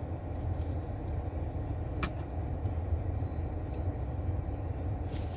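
Steady low hum of a parked car idling with its air conditioner running, heard from inside the cabin. There is one sharp click about two seconds in.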